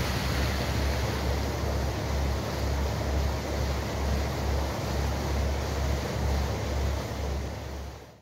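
Wind buffeting the microphone in uneven low gusts over a steady rush of water as a trawler cruises under way; the sound fades out near the end.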